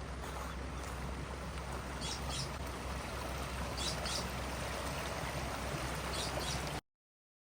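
Water from an overflowing farm pond running steadily over the spillway into the creek, with a few short high chirps over it. The sound cuts off abruptly near the end.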